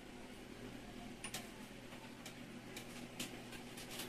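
Faint, irregular clicks and ticks, about eight of them starting a little over a second in, from handling the phone while scrolling, over a low steady electrical hum.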